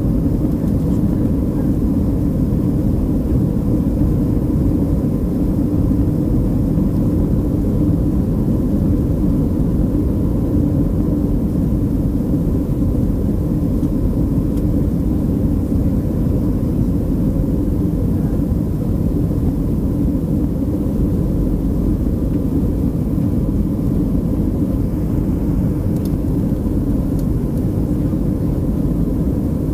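Boeing 737-300's CFM56 turbofan engines at climb power, heard inside the cabin over the wing: a steady deep rumble with a faint steady whine above it.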